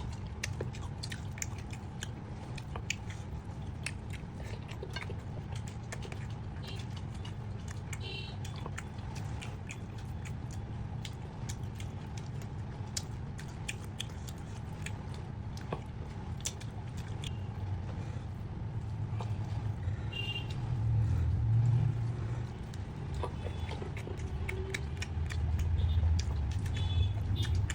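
Close-up eating sounds of chicken curry being chewed: many short wet mouth clicks and smacks. Under them runs a steady low rumble that swells twice near the end.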